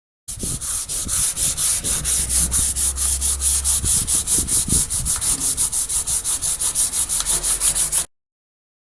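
Rapid back-and-forth abrasive rubbing by hand, about five strokes a second and hissy, like sanding or scrubbing a surface. It starts and cuts off suddenly.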